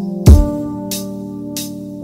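Background music with a slow beat: held chords, a heavy low drum hit about a quarter second in, then lighter high hits about every two-thirds of a second.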